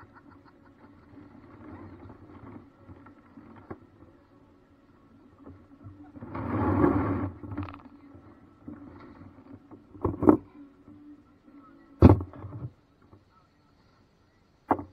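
Paddle craft on the water: low water noise, a louder splash lasting about a second and a half around six seconds in, then two sharp knocks about two seconds apart, like a paddle striking the hull.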